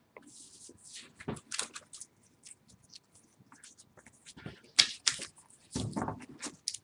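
Trading cards being handled and gathered up: an irregular run of small clicks and rustles, with louder ones a little after halfway.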